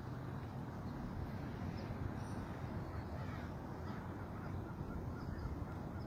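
Steady outdoor wash of distant surf and wind on a rooftop, with short bird calls now and then, a quick run of them about four to five seconds in.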